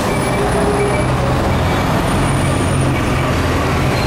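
A Hino Blue Ribbon HT bus's 9.9-litre M10U diesel engine running steadily, heard from inside the passenger cabin as a constant low hum under a broad rumble.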